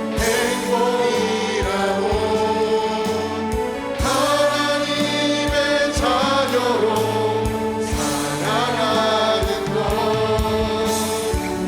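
Gospel praise music: a band with a steady drum beat under voices singing together in chorus.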